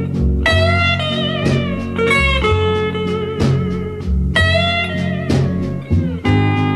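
Recorded instrumental music: an electric steel guitar plays a slow, gliding melody of held, slightly wavering notes over a guitar-and-bass backing, with a downward slide near the end.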